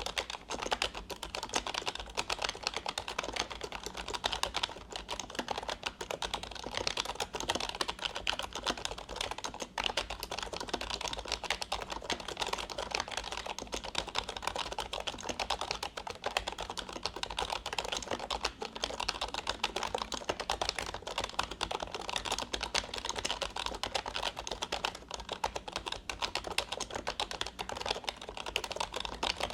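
Fast, continuous typing on a Fujitsu KB-3920F membrane keyboard, its rubber-dome keys giving a dense, unbroken stream of soft key clicks.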